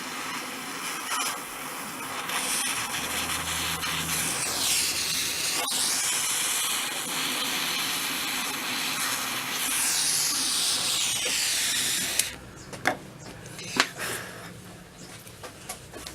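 Butane blowtorch flame hissing steadily from a Dremel Versatip gas soldering iron with its tip removed, heating a twisted bundle of cables for soldering. The hiss cuts off suddenly about twelve seconds in, followed by a few sharp clicks.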